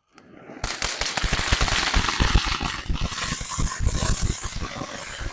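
Consumer firework (Winda Dino-Might) going off: a hiss builds, then about half a second in it breaks into loud, dense crackling, many rapid pops overlapping.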